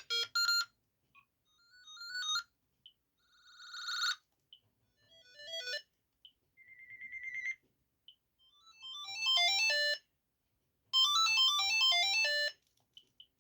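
Gigaset A120 cordless phone handset playing a string of short electronic ringtone melodies one after another. They include rising chirps, a swelling tone, a repeated beep that grows louder, and quick runs of notes. Brief single beeps fall in the gaps between them.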